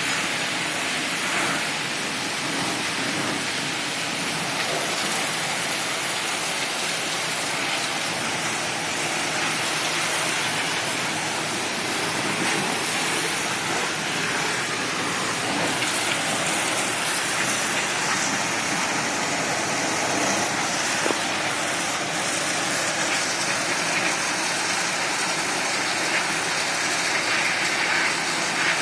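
High-pressure washer jet spraying water: a steady, even hiss of spray.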